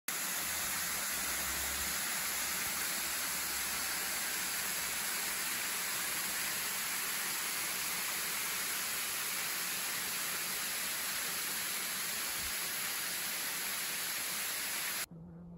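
Waterfall pouring down a rock face: a steady rushing noise that cuts off suddenly near the end.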